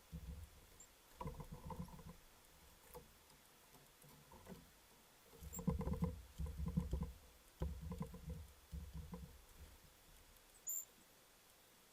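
A small bird scrabbling and pecking at a feeder close to the microphone: irregular bursts of low knocking and rustling, with one brief high squeak near the end.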